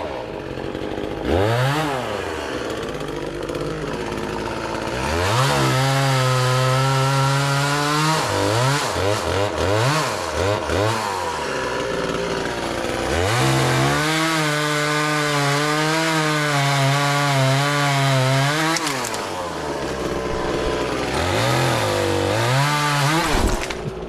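Two-stroke chainsaw revving up and held at full throttle through two long cuts, one of about three seconds and one of about six, blocking a tree section into rounds. Short throttle blips come between the cuts and the saw drops back towards idle.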